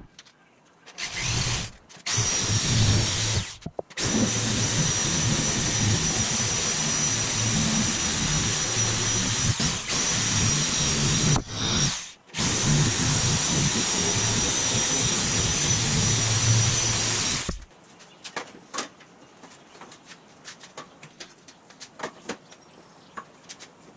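Handheld electric power tool cutting through aluminum sheet metal, its motor running with a steady high whine. It starts about a second in, stops briefly three times, and shuts off after about seventeen seconds, followed by light taps and clicks of the sheet being handled.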